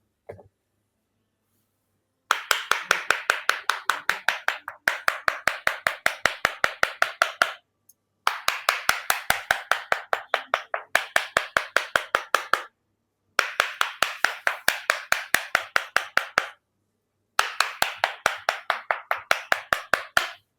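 Rapid, even percussive tapping on the body during massage treatment, about six strikes a second, in runs of two to three seconds with short pauses between them.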